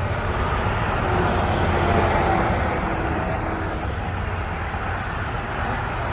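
A motor running steadily with a low hum and a wash of noise over it.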